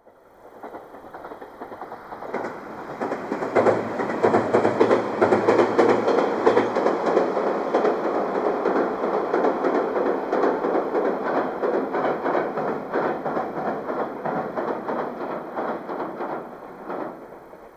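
A JR East GV-E400 diesel-electric railcar crossing a railway bridge, its wheels clattering rhythmically over the rail joints. It grows loud over the first few seconds, with a low hum at its loudest, then fades away as the train moves off.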